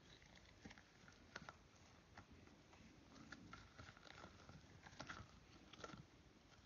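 Faint small sticky clicks and crackles of slime being pulled and peeled by fingers out of a rubber squishy toy. A few slightly louder crackles come about a second and a half in and again toward the end.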